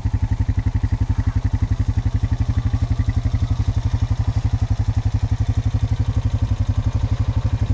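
Engine of a four-wheel-drive farm vehicle running steadily, with an even, rapid putt.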